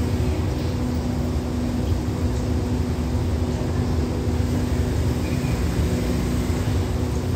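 Standing diesel passenger train idling: a steady low engine hum with a few held tones.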